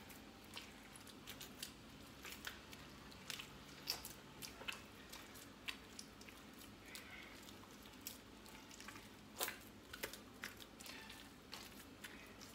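Hands kneading and squeezing soft homemade butter, faint wet squelching with irregular small clicks and smacks. The butter is being worked with thyme water and salt.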